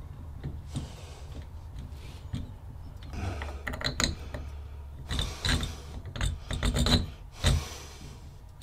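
Clear acrylic bathtub faucet handle being worked by hand on its valve stem: a run of plastic clicks, rattles and rubbing that starts about three seconds in, with the sharpest click near the end.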